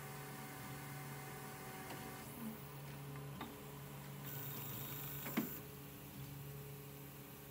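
Prusa i3 MK3 3D printer holding still while its nozzle heats: its fans hum steadily, with a few faint clicks and one sharper click about five seconds in. A brief high whine runs from about four to five and a half seconds in, as the print head shifts.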